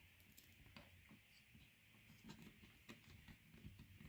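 Near silence, with a few faint clicks and taps of small plastic toy pieces being handled and fitted together.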